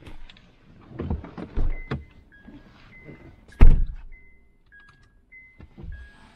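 Knocks and handling thumps inside a car, with one sharp, loud thump a little past halfway. From about two seconds in, a short electronic beep repeats steadily, alternating between two notes.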